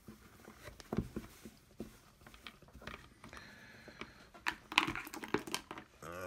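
Irregular small clicks, knocks and crinkling of small parts and material being handled during hand assembly work.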